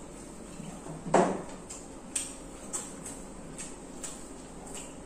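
Egg rolls being eaten from their paper wrappers: scattered short crinkles and clicks of the paper and mouth sounds of chewing, with one louder dull thud about a second in.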